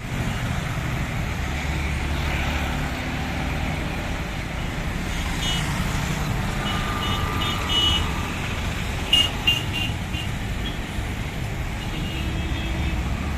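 Steady rumble of road traffic with several short, high horn toots and beeps in quick groups, the loudest a little past the middle.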